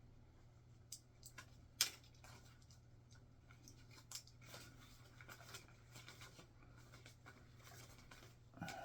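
Small plastic Lego pieces being handled and sorted: scattered light clicks and rattles, one sharper click about two seconds in, over a steady low hum.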